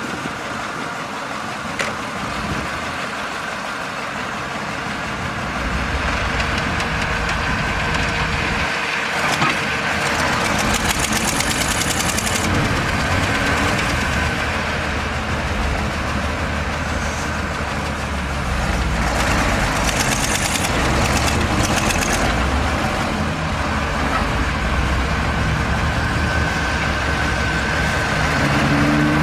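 Heavy diesel earthmoving machinery running steadily at work, its low engine rumble growing louder about six seconds in, with brief higher-pitched squealing or rattling patches a few times along the way.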